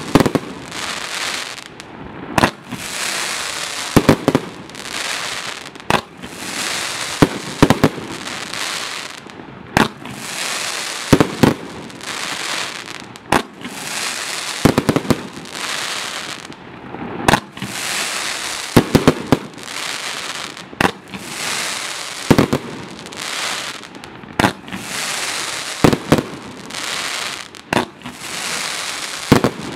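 A 1.2-inch, 100-shot fireworks fan cake firing. Sharp launch bangs come every second or two, sometimes in quick pairs, and each is followed by a dense wash of crackling from the crackling tails and brocade bursts.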